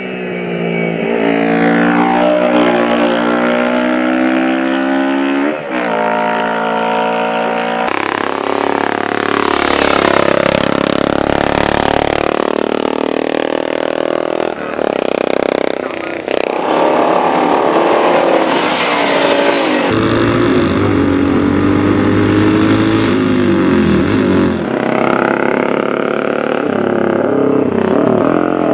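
Racing motorcycle engines at full throttle, the note rising and falling as machines accelerate and pass. The sound changes abruptly several times.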